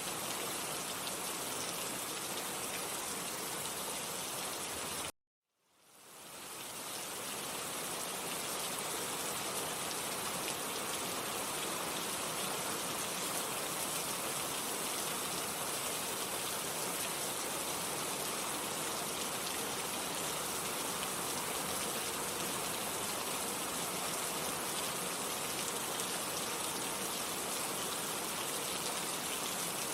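Steady, dense rain hiss from a rainstorm. A little after five seconds in it cuts out abruptly for about half a second, then fades back up over a second or two, like an edit or loop point in the recording.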